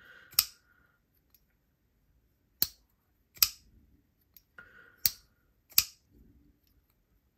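Flipper folding knife being flicked open and closed: about five sharp metallic clicks, some in pairs under a second apart, as the blade snaps open and locks, then clicks shut on the detent.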